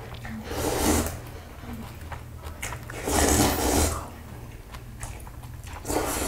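Noodles being slurped from a steel bowl, in loud noisy bursts about a second in, again around three seconds in, and near the end, over a low steady hum.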